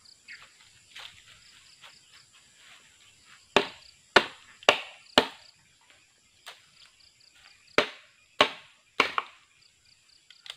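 Bolo knife hacking at bamboo: four sharp chops about half a second apart starting about three and a half seconds in, then three more around eight seconds, with a few lighter knocks in between.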